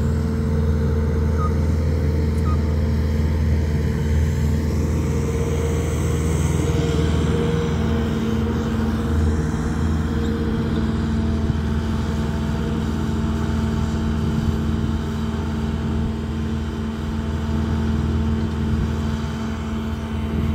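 Bobcat compact track loader's diesel engine running steadily as the machine drives over the dirt.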